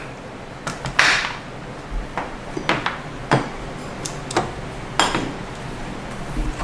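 Metal parts of a scooter's CVT transmission clinking and knocking as they are handled and pulled off the shaft: a series of separate sharp clanks and clicks at irregular spacing, the loudest about a second in.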